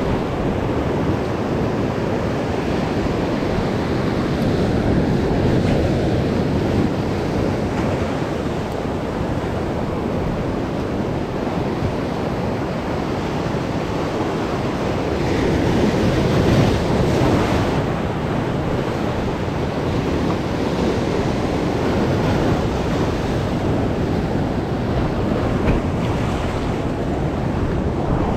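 Sea surf breaking and washing over shoreline rocks, with wind rumbling on the microphone. The surge swells louder a little past halfway as a bigger wave comes in.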